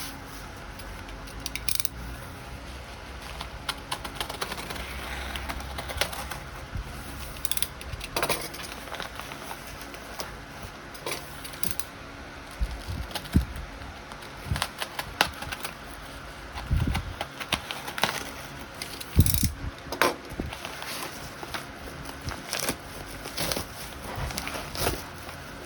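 Small objects being handled on a hard surface: scattered clicks, taps and a few duller knocks, irregularly spaced, over a low steady background.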